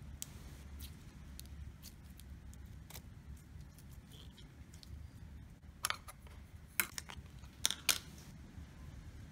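Faint sticky clicks and small pops of yellow putty being squeezed and pulled apart in the hands, with a few sharper clicks in the second half.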